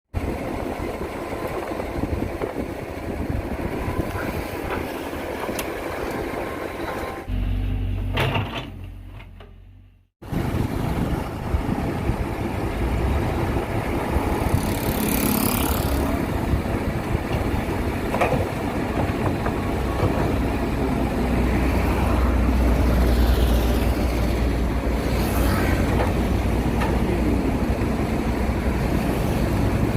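Excavator's diesel engine running as the machine digs, with a heavier low rumble that swells around seven seconds in, then a fade to a sudden near-silent gap about ten seconds in before the running resumes.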